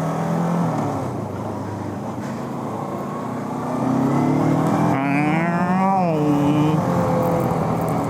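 Bristol Venturi 500 motorcycle engine running low, then accelerating from about four seconds in, its pitch climbing and dropping sharply at a gear change near six seconds.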